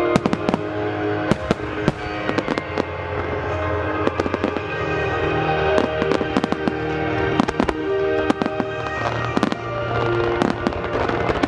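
A rapid starmine barrage of aerial firework shells, several sharp bangs a second, over music playing in time with the show.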